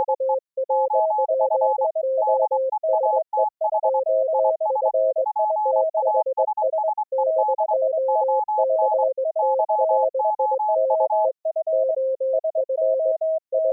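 Morse code (CW) tones from two operators keying at once, recreated by a Morse-over-IP receiver at two different pitches, one lower and one higher. Dots and dashes overlap in full duplex. Near the end only the lower-pitched station keys for a couple of seconds before the higher one comes back.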